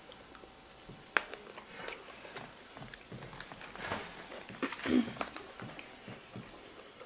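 Eating sounds: plastic forks clicking and scraping in aluminium foil takeout trays, with chewing. There is a sharp click about a second in and a short hum near five seconds.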